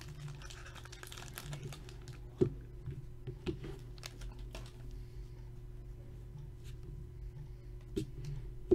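Foil wrapper of a trading-card pack faintly crinkling and tearing as it is opened, then cards tapped and set down on a tabletop a few times. A steady low hum sits underneath.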